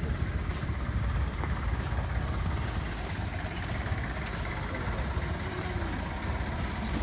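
Low, steady rumble of a parked jeepney's diesel engine idling.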